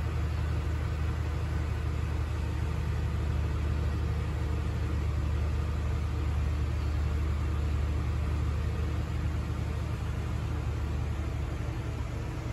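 Steady low mechanical hum with a faint even drone above it, unbroken throughout.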